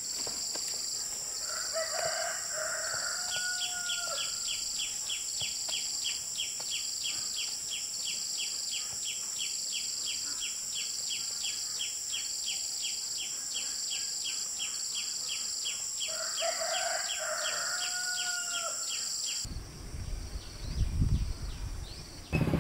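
A rooster crowing twice, about fifteen seconds apart, over a steady high-pitched insect drone and a regular chirping of about three pulses a second. Near the end the insect sound cuts off and a low rumble takes over.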